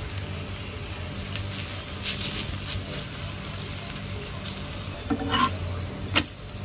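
Paneer paratha frying in oil on a hot tawa, sizzling steadily. About five seconds in a metal spatula scrapes under it, and there is a sharp clack against the pan as it is flipped.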